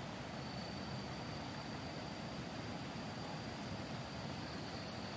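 Wind buffeting the microphone: a steady low rumbling noise, with a faint thin high tone that comes in about half a second in.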